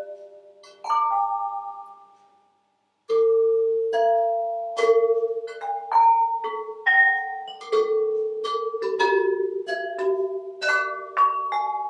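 Hand-made terracotta ceramic bells, hung in nested pairs, struck with soft-headed mallets, each strike giving a clear pitched note that rings on. One note about a second in dies away to a brief silence, then from about three seconds a melody of notes at different pitches follows, quickening to two or three strikes a second with the rings overlapping.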